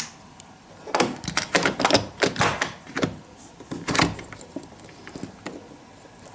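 Sliding window's add-on sash lock and frame being handled: a quick run of sharp clicks and rattles about a second in, thinning to a few light clicks, as the safety lock is fastened again on the closed window.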